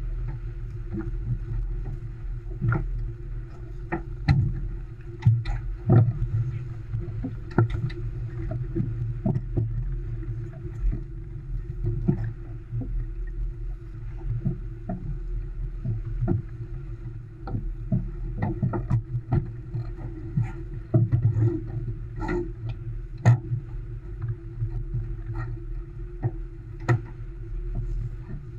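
Muffled, steady rush of wind and water on an Olson 25 sailboat beating upwind through choppy water, with frequent short, sharp knocks.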